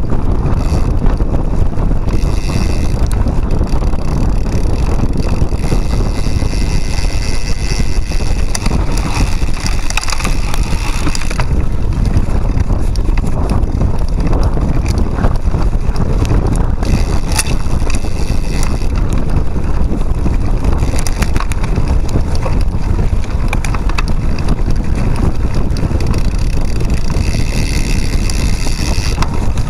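Steady rumble of a cyclocross bike's tyres on a forest trail, heard through heavy wind noise on a handlebar-mounted camera's microphone, with scattered short rattles and knocks from bumps in the trail.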